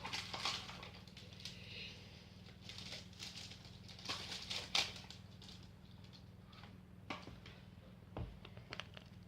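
Scattered soft clicks, taps and short rustles of hands handling slime-making materials and containers, over a faint steady low hum.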